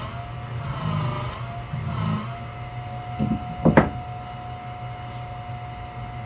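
Sharpening machine's motor-driven disc spinning, its whine wavering in pitch and then holding steady over a low hum. Two short scraping knocks about three and a half seconds in.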